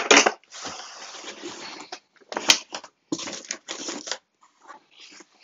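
Cardboard box flaps rustling and scraping as a silver insulated airline galley box is pulled up out of its tight-fitting packing box, in rough bursts, with one sharp knock about two and a half seconds in.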